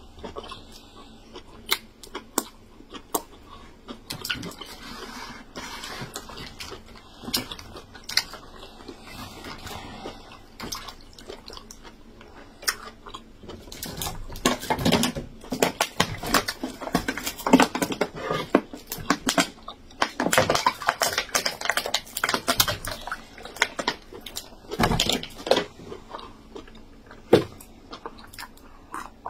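Close-miked eating sounds: a person chewing yam fufu with egusi soup, with many sharp mouth clicks and smacks that grow dense and loud through the middle stretch.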